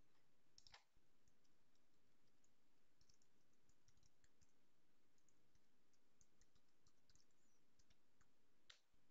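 Faint computer keyboard typing: a run of quick key clicks through the middle, with a sharper single click about a second in and another near the end, over near-silent room tone.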